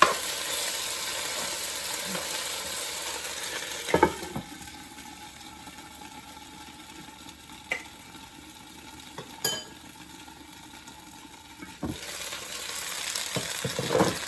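Sesame chicken and vegetable stir fry sizzling in a pan over low heat, with a utensil knocking against the pan several times. The sizzle is louder in the first few seconds and again near the end.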